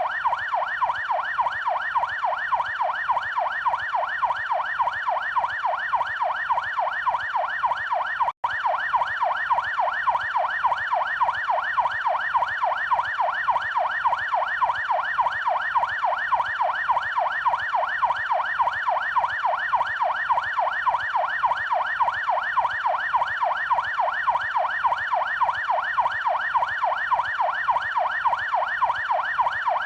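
Police car siren on its yelp setting: a fast wailing tone sweeping up and down several times a second, without pause, except for a split-second cut about eight seconds in.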